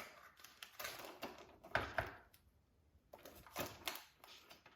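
Irregular light clicks and knocks from a robot vacuum cleaner being handled, with the loudest about two seconds in and a short lull after it.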